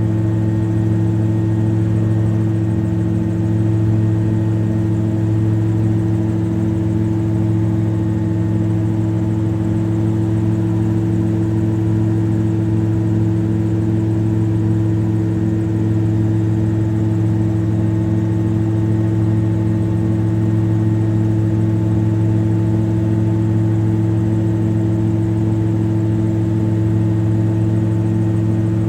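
Camera drone's motors and propellers running at a steady pitch, a constant hum of several held tones that does not rise or fall.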